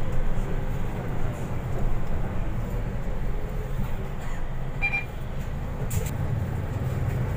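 Cabin noise of a moving MAN NL323F diesel city bus: a steady low drone from the engine and running gear. A brief electronic beep sounds about five seconds in.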